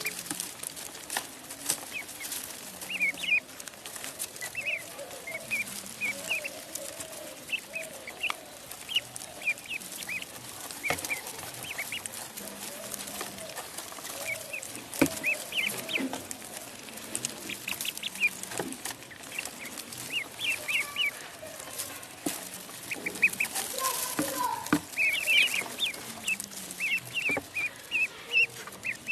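Ducklings peeping in many short, high chirps, often in quick runs, with lower calls and scattered clicks underneath.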